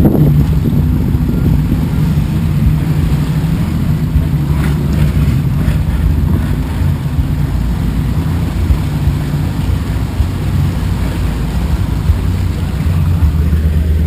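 Jeep Wrangler's engine running steadily at low speed as it drives through a shallow creek, heard from inside the cab as a constant low rumble.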